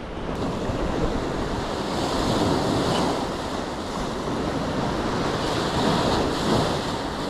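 Wind buffeting the microphone in a steady rushing rumble, with sea waves washing in the background.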